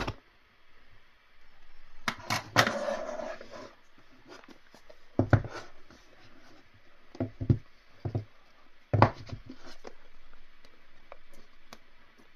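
A smartphone's cardboard retail box being handled and opened by hand: a scraping slide about two seconds in, then a series of separate knocks and taps as the box and its parts are set down and moved.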